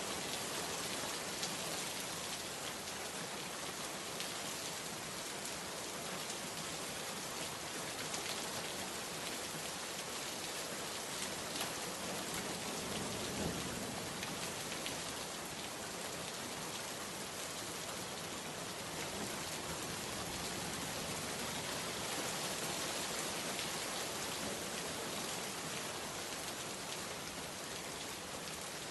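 Heavy rain falling steadily on surfaces, a dense, even hiss of drops, with a brief low rumble about halfway through.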